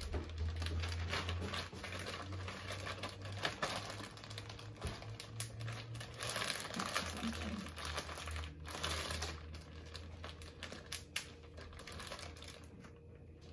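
Plastic zip-top bags crinkling and rustling with many quick sharp crackles as they are handled and pressed shut, over a low steady hum.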